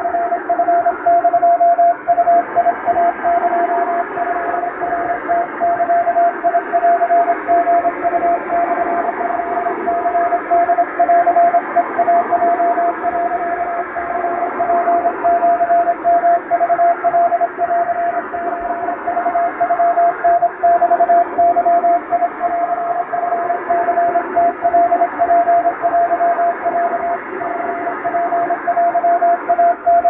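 Japanese wabun Morse code telegram hand-keyed on a straight key: a single mid-pitched beep switched on and off in dots and dashes, over a steady hiss of shortwave-style radio static.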